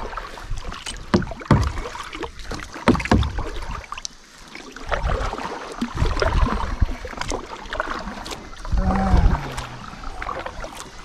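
Kayak paddles dipping and splashing in river water in irregular strokes, with low rumble from the boat, and a short falling low-pitched sound about nine seconds in.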